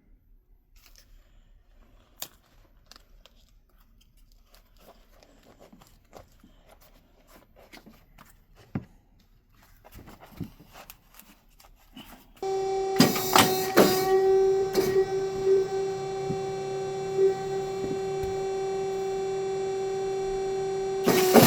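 Faint handling clicks and taps, then about halfway through an electric shoe-repair machine starts up and runs with a steady hum, with a few sharp clacks over it.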